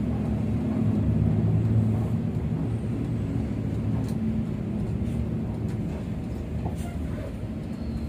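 Bus engine running under way with tyre and road noise, heard from inside the cabin as a steady low drone that swells slightly a second or two in.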